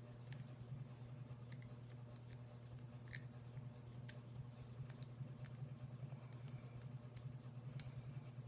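Faint, irregular small metal clicks of lock picks working the wafers of a double-sided wafer padlock, over a steady low hum.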